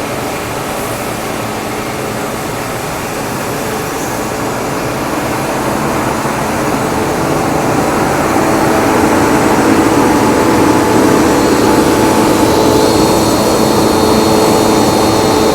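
250 hp two-stage screw air compressor running with a steady mechanical hum and whirr, growing louder over the first ten seconds or so and then holding level. A high steady whine joins near the end.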